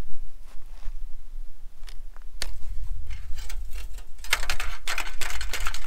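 Clicking and scraping as a trekking pole prods a rusty strip of tin on gravel, busiest in the last couple of seconds, over a low rumble of wind on the microphone.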